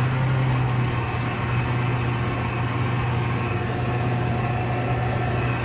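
Electric stand mixer running at a steady slow speed, its motor giving an even low hum as the beater turns through cake batter in a stainless-steel bowl.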